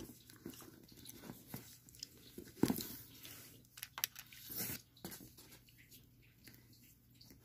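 Gum chewing close to the microphone, soft wet clicks and smacks, mixed with light knocks and rustles from handling a ball-jointed doll. There is a louder thump between two and three seconds in.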